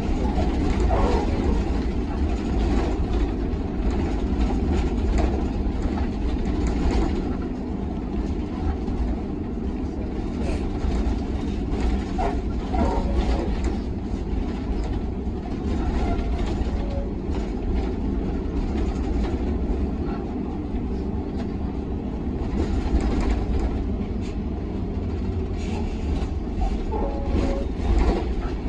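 Steady low rumble of a tour bus's engine and tyres on the road, heard from inside the cab while driving, with occasional knocks and rattles.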